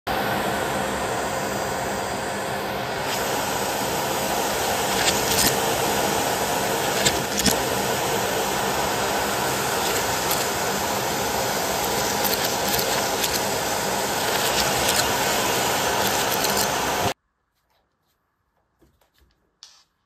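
Bosch BGS21X320 bagless cylinder vacuum cleaner running with a steady loud rush of suction, with a few sharp clicks about five and seven seconds in. It stops abruptly about seventeen seconds in, followed by a few faint ticks.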